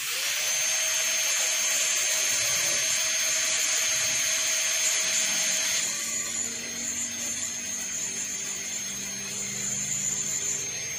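High-speed dental air-turbine handpiece running with its water spray while the bur cuts a cavity preparation in a plastic typodont molar: a steady high whine over hiss. The hiss eases about halfway through while the whine holds steady.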